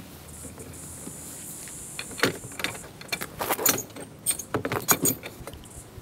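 Wire-grid door of a plastic pet carrier rattling and clicking shut, a quick run of sharp metallic clinks in the second half. A steady high hiss runs over the first couple of seconds.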